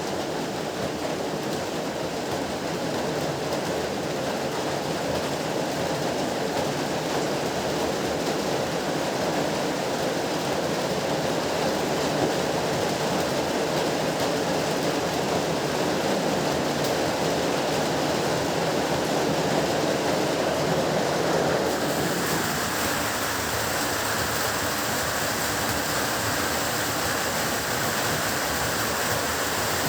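Heavy rain pouring steadily, a dense even hiss. About 22 s in, its character shifts, becoming thinner and hissier.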